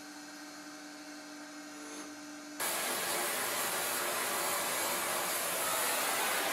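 A low steady hum, then a loud, steady rushing hiss that starts suddenly about two and a half seconds in and holds.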